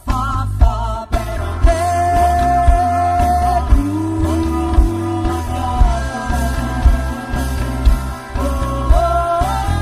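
Live rock band playing: drums and bass keeping a steady beat under electric guitar, with a long, held sung melody line on top.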